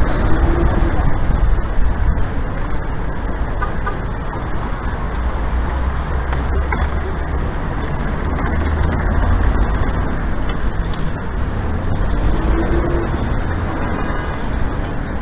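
Steady city street traffic noise, mostly a low rumble.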